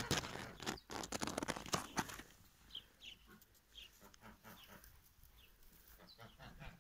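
Dense rustling and crackling in the grass for about two seconds as a cat works at a mouse, followed by a string of short, high chirps.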